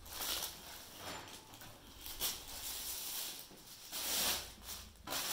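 Rustling from suits being handled and laid out, in several brief noisy bursts.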